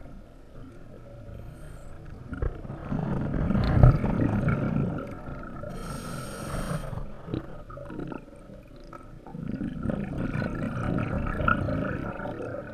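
Scuba regulator breathing heard underwater: two long spells of bubbling exhalation, with a short hissing inhalation between them about six seconds in.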